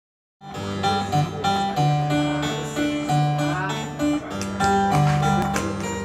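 Medieval music played live by a small ensemble: quick plucked or struck string notes over low held notes, starting about half a second in.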